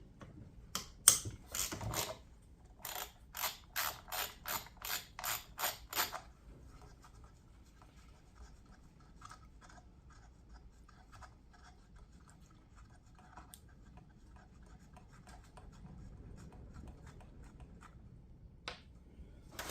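Ratchet wrench clicking in a quick run of strokes, about two or three a second, as the 7/16 nut holding a chainsaw's clutch cover is loosened. After about six seconds it stops and only faint light ticks remain.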